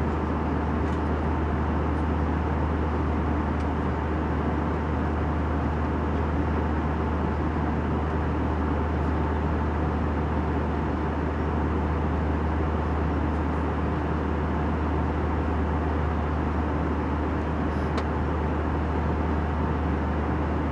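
Airplane cabin noise in flight: a steady drone of engine and rushing air with a strong low hum underneath, unchanging throughout.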